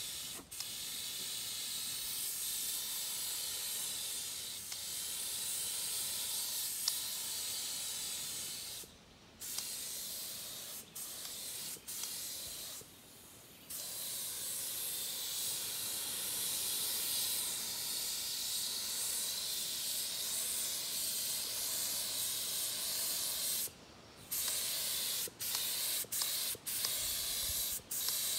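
Compressed-air paint spray gun spraying primer: a steady hiss that stops and starts as the trigger is released and squeezed, with short pauses around nine and thirteen seconds in and a run of short bursts near the end.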